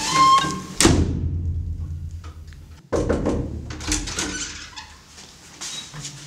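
An interior room door swinging shut with a thunk about a second in. Another sudden knock follows about two seconds later.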